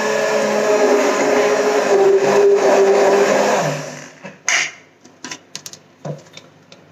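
Electric hand blender running in a steel jug of cold milk and crushed Oreo biscuits, a steady whir that stops a little under four seconds in and winds down. A few short knocks and clicks follow.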